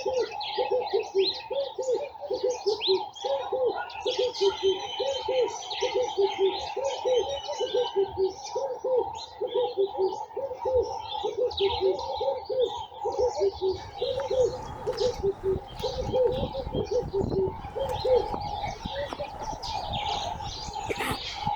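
Garden birds: a dove cooing in a long run of low repeated notes, about two a second, which stops about fourteen seconds in, while small birds chirp and twitter high above it. A steady higher drone runs underneath.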